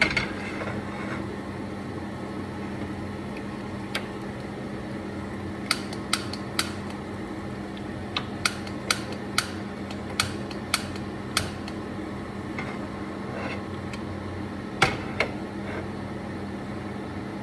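Repeated sharp clicks of a hand-held long-nosed lighter being sparked at a gas stove burner, about two a second in a run from about six to eleven seconds in, with one louder click near the end: repeated tries to light the burner. A steady hum underneath.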